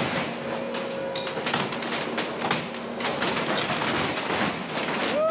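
A skid steer's grapple wrenching a storm-damaged, metal-clad shed door off the building: a continuous run of bangs, knocks and crashes of sheet metal and wood, over the steady sound of the machine's engine.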